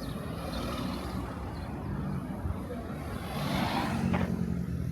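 A motor vehicle's engine running close by, with a low steady drone. It gets louder about three and a half seconds in, as if the vehicle is pulling past.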